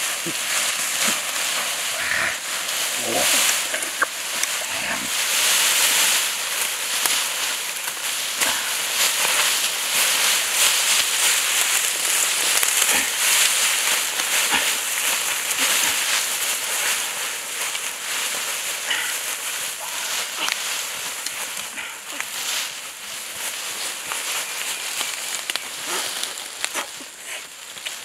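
Rustling and crackling of leafy green stalks and dry bamboo leaf litter as they are pulled up and gathered by hand, with a few soft thumps in the first few seconds.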